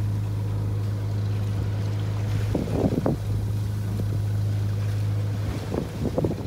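A boat's engine running steadily under way, a constant low hum, with wind on the microphone and water noise. A short higher sound comes in about halfway, and the hum fades near the end.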